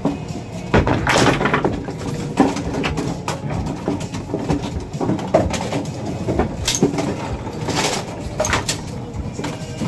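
Automatic bowling pinsetter cycling: pins clattering and the machine's sweep and deck clanking, a string of irregular knocks and rattles over a mechanical rumble.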